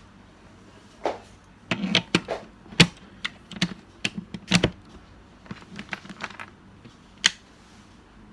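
Irregular clicks and taps of a laptop keyboard being typed on, with a few louder knocks among them.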